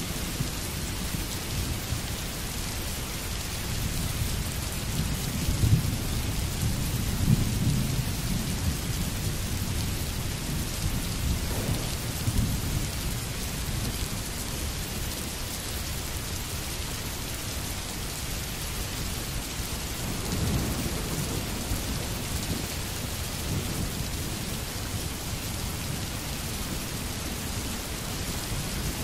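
Steady rain falling on a street, with low rumbles of thunder swelling a few seconds in and again about two-thirds of the way through.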